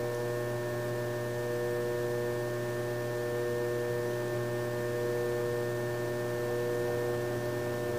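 Electric potter's wheel motor humming steadily as the wheel spins.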